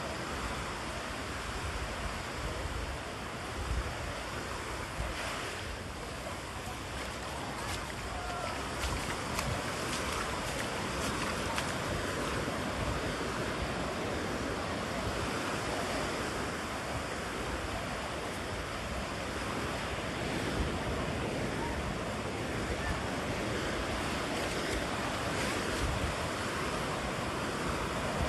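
Ocean surf breaking and washing up onto the beach in a steady hiss that swells gently, with wind rumbling on the microphone.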